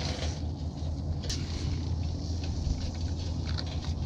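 A steady low rumble runs throughout, with a few faint light ticks of handling.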